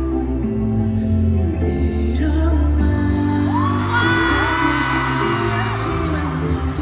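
Live K-pop song through concert-hall speakers: sung vocals over steady chords and bass, with a long high note rising about halfway through and held for about two seconds. The audience joins in with whoops.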